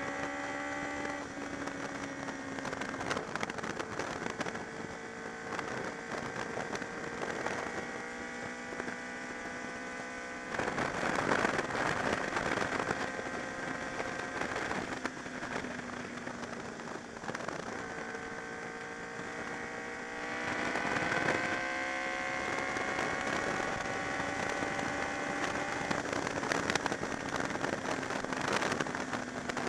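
Honda VFR's V4 engine running at speed, its pitch climbing slowly and dropping back several times, under a rush of wind buffeting the camera microphone that swells about ten seconds in and again about twenty seconds in.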